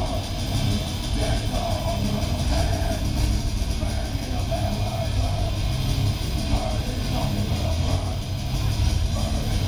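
Black metal band playing live: distorted electric guitar over drums, loud and dense without a break.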